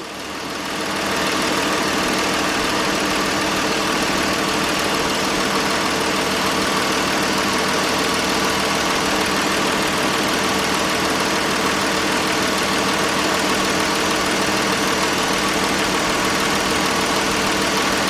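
2012 Dodge Durango's 3.6-litre Pentastar V6 idling steadily, heard close up in the engine bay. It is running with a cylinder-3 misfire (P0303) that the mechanic puts down to a compression difference in that cylinder.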